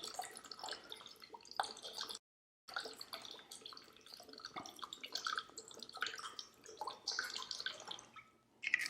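Rice wine vinegar being poured into a container, an irregular trickle of small splashes and drips, cutting out briefly about two seconds in.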